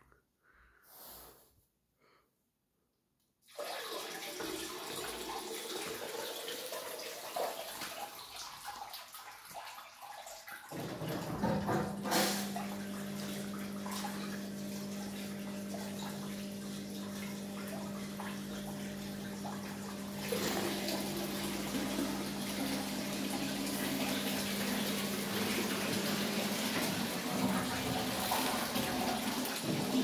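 Amica WA 14680 W front-loading washing machine running with water rushing through it. After a few near-silent seconds the rush of water starts, a steady hum joins it about eleven seconds in, and the sound gets a step louder around twenty seconds.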